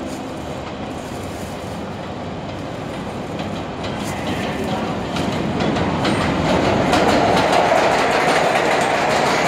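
R142A subway train running express through the station without stopping: a rumble that grows louder from about four seconds in as it approaches. Wheels clatter over the rail joints as the cars pass close by.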